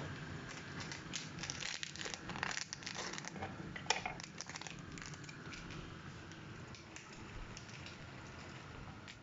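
Instant-noodle flavour sachet crinkling and crackling as it is handled and opened, a run of quick crackles that thins out after about four seconds.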